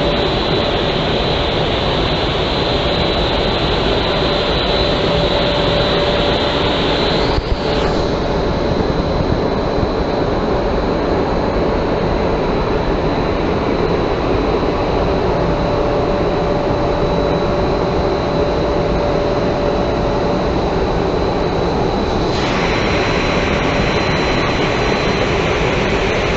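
Triulzi SY2500 4.2.4 horizontal glass washing machine running: a loud, steady mechanical rush with a high whine and a lower hum over it. The upper hiss drops away suddenly about seven seconds in and comes back suddenly about fifteen seconds later.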